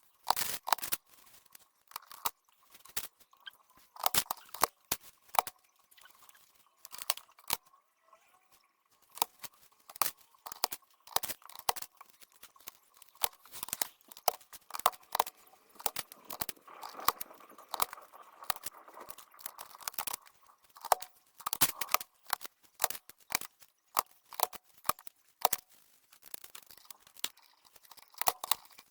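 Irregular sharp plastic clicks and taps from an HP SK-2502C membrane keyboard being handled, several a second in uneven clusters with short pauses.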